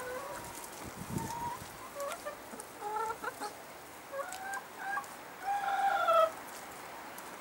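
Hens clucking: a string of short clucks, ending in a longer, louder drawn-out call about six seconds in.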